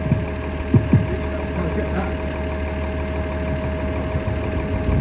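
Steady low engine-like hum with a thin steady whine over it, and two short low thumps about a second in.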